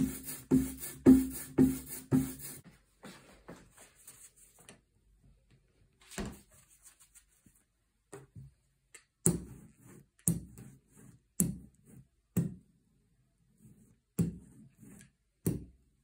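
Rubber brayer rolled back and forth through blue printing ink on a glass slab, even strokes about two a second, which stop about two and a half seconds in. From about nine seconds in, the inked brayer is rolled across the printing plate in single strokes about once a second.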